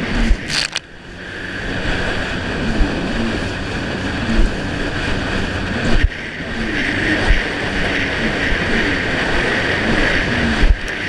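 Yamaha jet ski engine running hard, its pitch rising and falling with the throttle as the hull slaps across choppy water, with rushing spray and wind on the microphone. The engine dips briefly about a second in, then builds back, and there are sharp thumps of the hull hitting waves, one midway and one near the end.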